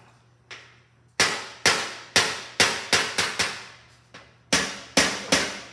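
Body hammer striking a car fender panel with a dolly held behind it: about a dozen sharp metallic clangs, each ringing out briefly, starting about a second in, with a couple of lighter taps among them. This is hammer-and-dolly work to raise a low spot in the panel.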